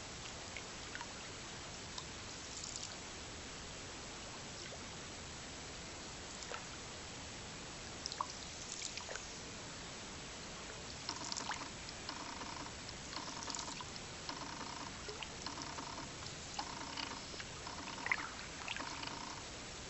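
Canoe paddling on a stream: water trickling and dripping with small splashes. About halfway through, a repeated animal call starts, roughly once a second.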